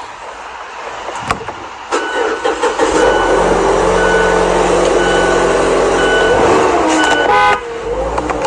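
Car horn held in one long, raspy blast of about five seconds, then a short toot near the end.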